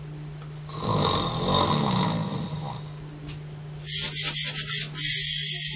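A person snoring: one long, rasping snore of about two seconds starting a second in. Near the end comes a run of short, sharp bursts of hiss.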